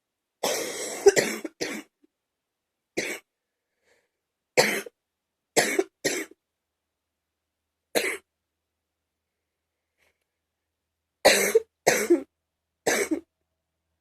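A woman coughing: about ten separate coughs, a longer fit near the start, then single and paired coughs with pauses of one to three seconds between.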